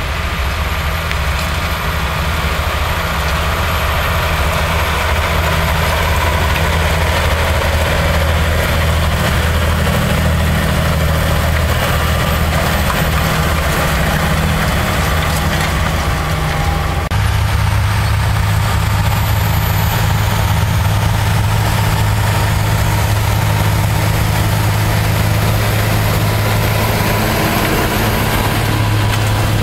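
Claas tractor's diesel engine running steadily under load, pulling a Lemken cultivator through the soil. Its low hum steps to a slightly higher note a little over halfway through.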